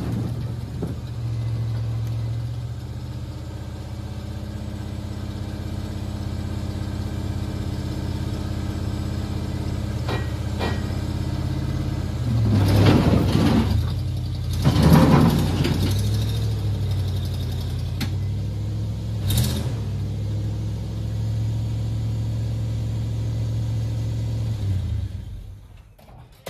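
Dump truck engine running steadily while the tipped bed unloads a load of red oak firewood; logs clatter out in loud bursts about halfway through, again a couple of seconds later, and once more a little after that. The engine shuts off near the end.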